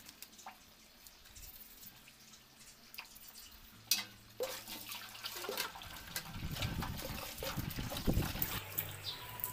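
A few faint clicks, then a sharp click about four seconds in. After that a kitchen tap runs, its water splashing into a steel basin as a crab is rinsed under it by hand.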